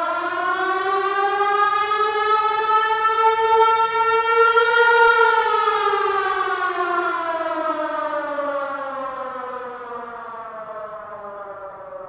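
A siren wailing: one long tone that rises slowly in pitch, peaks about five seconds in, then slides back down and fades.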